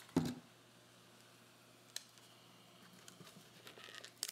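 A knock as a plastic vinegar bottle is set down on a table just after the start, then a quiet stretch, then rubbery handling and a few sharp snaps near the end as a balloon is stretched over the mouth of a plastic bottle.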